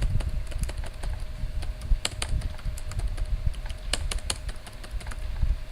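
Typing on a computer keyboard: a quick, irregular run of key clicks as code is entered.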